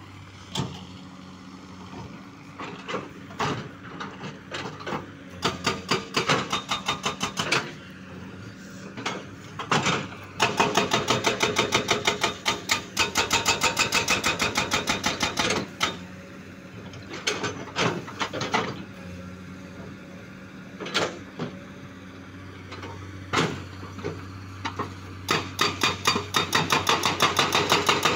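Hydraulic rock breaker on a Komatsu excavator hammering a boulder in runs of rapid blows, the longest lasting about five seconds in the middle, with single knocks between the runs. The excavator's diesel engine hums steadily underneath.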